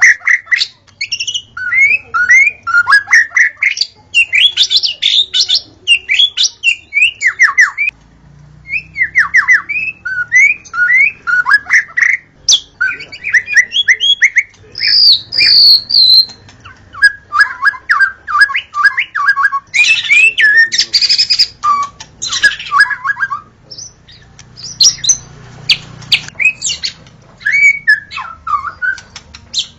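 White-rumped shama (murai batu) singing a fast, varied song of whistles and chattering notes in quick runs, with brief pauses between phrases.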